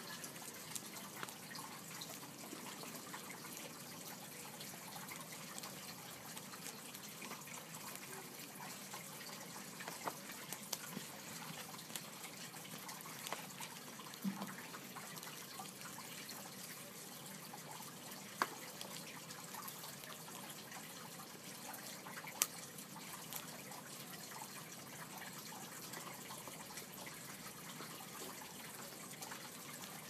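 African grey parrot chewing a plastic pen with its beak: scattered small clicks and cracks over a steady hiss, with a few sharper snaps now and then.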